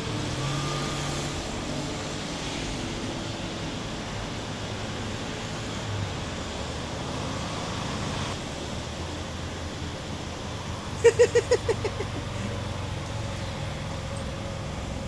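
Small motor scooter pulling away and later riding back in at low speed, its engine running over a steady wash of road traffic. About eleven seconds in, a quick run of half a dozen short high-pitched pulses.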